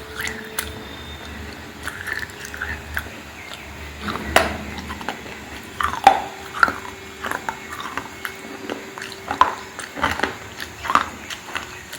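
Close-miked biting and chewing of baked clay from a clay diya: irregular sharp crunches and clicks, several a second at times, the loudest about four seconds in.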